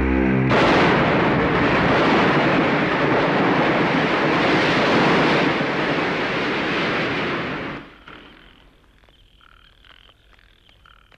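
A loud, steady rushing noise starts abruptly about half a second in and cuts off suddenly about eight seconds in. After it, frogs croak faintly.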